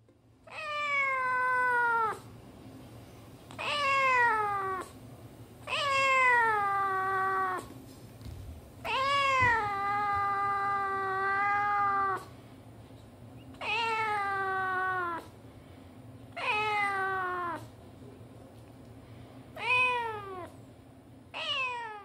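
Cat meowing repeatedly: about eight long, drawn-out meows a second or two apart, each sliding down in pitch at its end. The fourth is the longest, at about three seconds.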